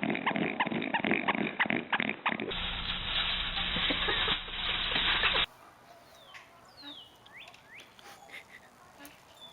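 Puppies squealing and yipping in quick, rapid calls, then about three seconds of loud rushing noise. After a cut, a few faint, high falling squeaks.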